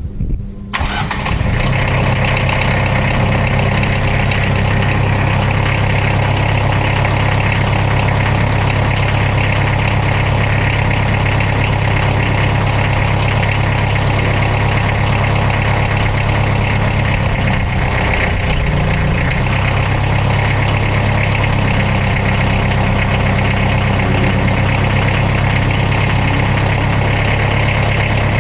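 Compact tractor engine started about a second in, then running steadily to power the cement mixer's hydraulics. Its pitch shifts briefly about two-thirds of the way through.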